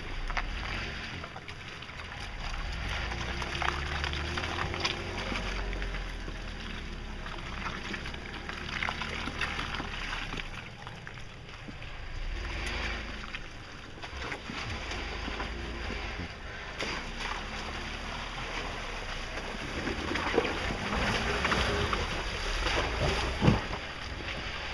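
Jeep Wrangler engine running at low revs, the rumble swelling and easing as it crawls up a muddy, rutted off-road trail, with a few sharp knocks from the vehicle working over the ground.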